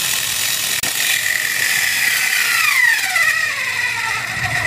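Zeus 3.6-volt cordless screwdriver running under load as it drives a large screw into plywood: a steady high whine, with a second tone dropping in pitch from about two seconds in as the motor slows. The motor is struggling and cannot drive the screw fully home.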